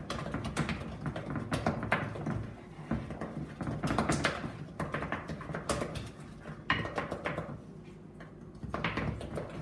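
Wooden spoon beating cake mixture in a ceramic mixing bowl: irregular scrapes and knocks of the spoon against the bowl as beaten egg is mixed in a little at a time.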